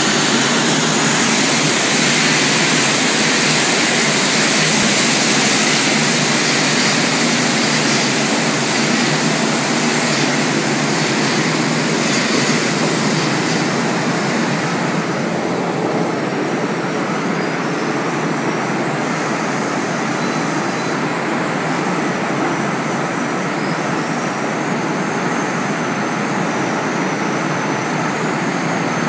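Coal-handling conveyors and machinery in a power plant's coal bunker bay running: a loud, steady industrial noise. About halfway through, the hiss thins and a faint high wavering whine comes in.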